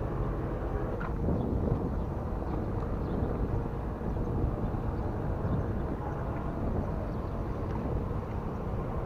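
Steady low outdoor rumble with no clear rhythm or tone, with a faint click about a second in.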